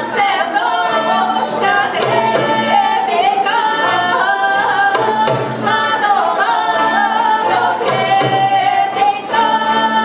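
Music with singing: a voice or voices gliding up and down in pitch over an instrumental accompaniment.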